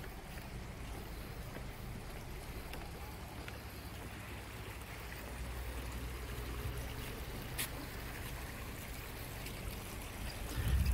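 River water running over rocks in shallow riffles, a steady rushing, under a low rumble that swells near the end. There is one sharp click about two-thirds of the way through.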